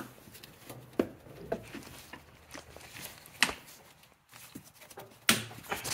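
A few sharp clicks and knocks from hands working the airbox lid clips on a Nissan Xterra. The two loudest come in the second half, about two seconds apart.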